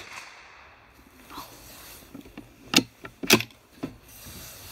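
.22LR rifle shot right at the start, its echo fading away over about half a second. Nearly three seconds in comes a short run of sharp clicks, the two loudest about half a second apart.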